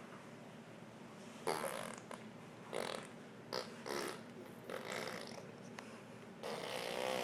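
Baby blowing raspberries with her lips, making fart noises in a string of short buzzy spurts, with a longer one near the end.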